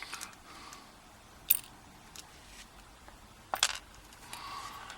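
Small metallic clicks as the pins and springs of a disassembled euro-cylinder lock are worked out of the cylinder: two sharp clicks, about a second and a half in and again about three and a half seconds in, with a few fainter ticks.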